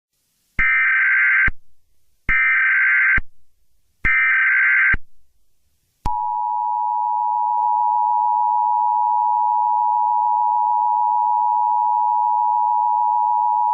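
Emergency Alert System tones: three short buzzing bursts of SAME digital header code, just under a second each, then the two-tone attention signal, a steady harsh dual tone starting about six seconds in.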